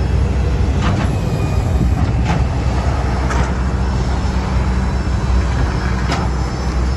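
Tow truck's engine running steadily close by, a low rumble, with a few sharp knocks about one, two, three and six seconds in as its wheel-lift is set up to tow a broken-down minivan.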